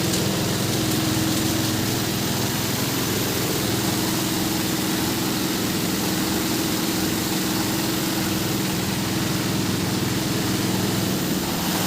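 The 16 HP diesel engine driving a waste sorting machine, running at a steady speed with an even hum.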